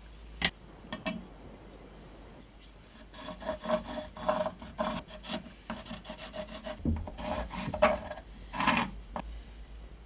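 A marker scratching over a wooden handle block in short strokes, tracing the outline of a knife part. Two sharp clicks come about half a second and a second in.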